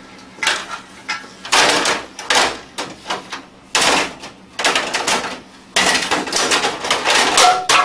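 Plastic top covers of an office printer being fitted back on: a series of clattering knocks and scrapes as the panels are set down, slid and pressed into place.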